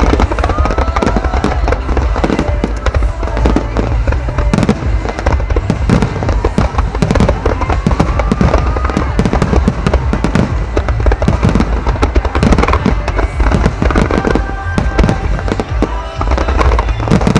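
Wide starmine fireworks barrage: shells launching and bursting in rapid succession, a dense, unbroken run of booms and crackles.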